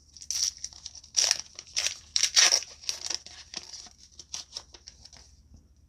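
Trading-card booster pack's foil wrapper crinkling and tearing open in a run of short rustles, loudest a little past two seconds in and dying away about five seconds in.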